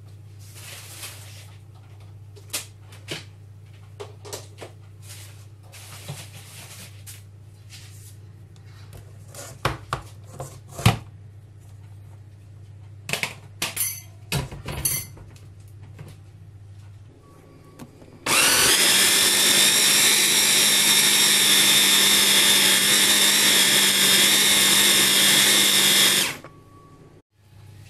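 Electric mini food chopper motor running steadily for about eight seconds and then cutting off suddenly. It is blending a sticky mix of aloe vera gel, vitamin E and olive oil into a liquid. Before the motor starts, scattered knocks and clicks of handling are heard.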